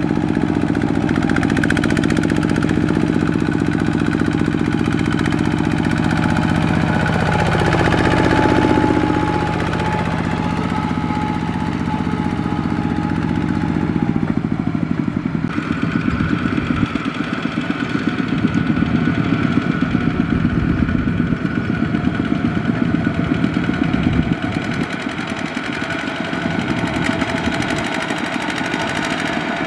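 Two-wheel walking tractor's single-cylinder diesel engine running under load as it pulls a loaded trailer through mud. Its pitch dips and recovers about eight seconds in.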